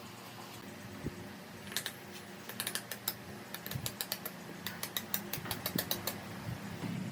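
A quick, irregular run of sharp clicks from a small hand-worked mechanism, over a faint steady hum.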